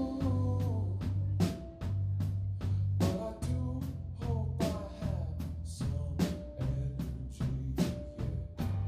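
Live band playing: a drum kit keeps a steady beat under a bass guitar line, with electric guitar and keyboard.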